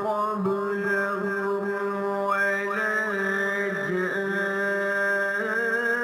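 A man reciting the Quran in a slow, melodic chanting style, drawing out long held notes with gentle glides in pitch.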